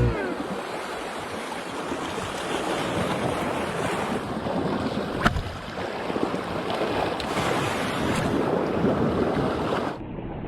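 Surf washing on the shore with wind buffeting the microphone, and a single sharp click about five seconds in.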